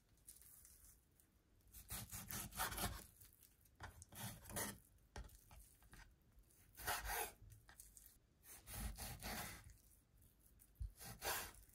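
Kitchen knife slicing raw chicken thigh into bite-size pieces on a wooden cutting board: about five short sawing strokes of the blade through the meat and against the board.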